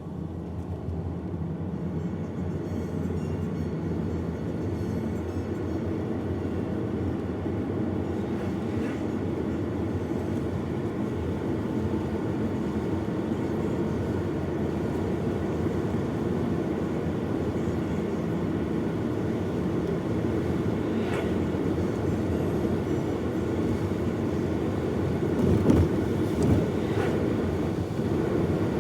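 Steady low rumble of a moving vehicle heard from inside, building up over the first second. A couple of short sharp sounds stand out near the end.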